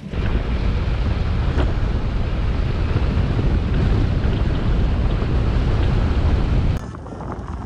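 Wind buffeting the camera microphone on a road bike riding at speed, a loud steady rumble. It cuts off suddenly near the end.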